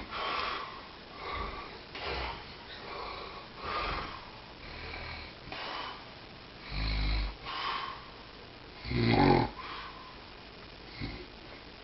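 A dog snoring in its sleep: a run of noisy breaths about one a second, with two louder, deeper snores later on, the second the loudest.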